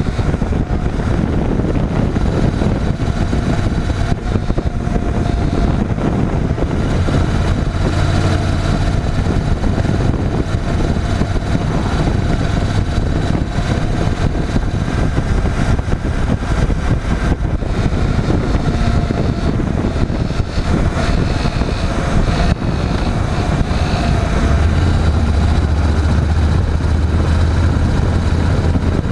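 Honda NC750X motorcycle running, a steady low engine rumble with dense noise over it that swells twice.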